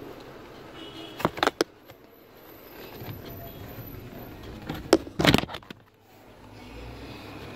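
Plastic clicks and knocks from a Honda Fit's lower dash guard being pulled free and handled, in two short clusters, about a second in and about five seconds in.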